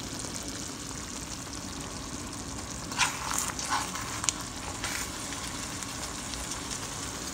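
Chicken in tomato sauce sizzling in a frying pan, a steady frying hiss with a few short sharp clicks between about three and five seconds in.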